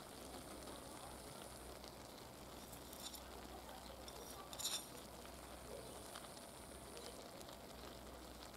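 Faint sizzling of a stew simmering in an open kazan, with a couple of soft crackles about three and four and a half seconds in.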